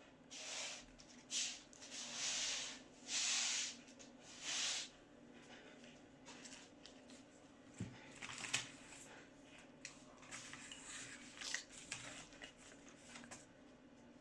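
Plastic steering-column and clock-spring parts being handled and fitted by hand: a few short rustling scrapes in the first five seconds, then scattered light clicks and taps as pieces are pushed into place.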